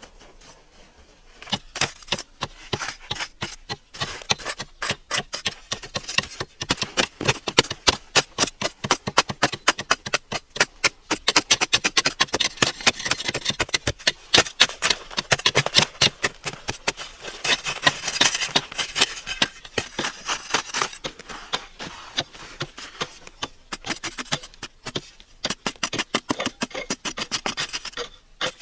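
Flat metal blade scraping and chopping into dry, hard-packed earth in rapid repeated strokes, starting about a second and a half in.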